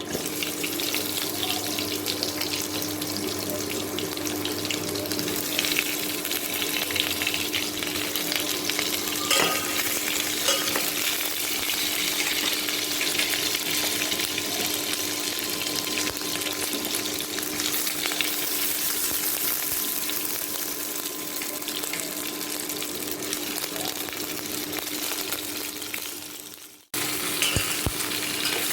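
Sliced onions sizzling as they fry in hot oil in a pan, a steady hiss with a few clicks of stirring. A low steady hum runs underneath, and the sound drops out briefly near the end.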